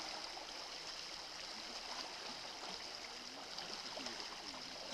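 Water running and trickling past broken river ice floes, a steady even rush.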